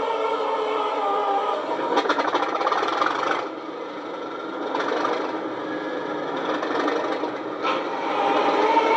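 Recorded Class 37 diesel engine sound, the English Electric V12, running with the locomotive standing still, played by a model locomotive's DCC sound decoder through its small speakers. The engine note swells at about two seconds, drops back at about three and a half seconds, and rises again near the end.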